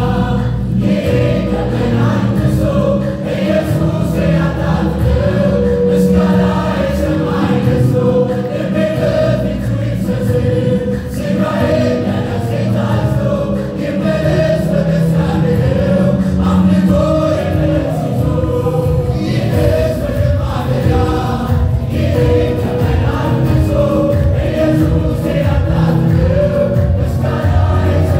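Ethiopian church choir singing an Amharic hymn, many voices together, loud and continuous.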